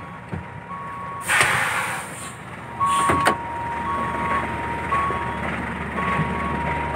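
Truck engine running with a backup alarm beeping about once a second at one steady pitch. A loud hiss comes about a second in, and a clatter near three seconds.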